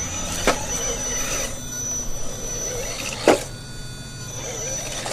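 A radio-controlled rock crawler's electric drive whining in a thin, high, steady tone as it crawls over rocks, with two sharp knocks, the louder one about three seconds in.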